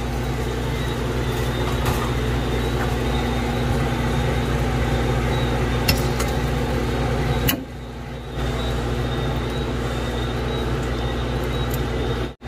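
Steady low mechanical hum that drops away briefly about seven and a half seconds in and cuts off sharply just before the end.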